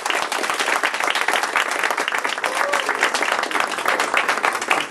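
Audience applauding: many hands clapping in a dense patter that thins out at the very end.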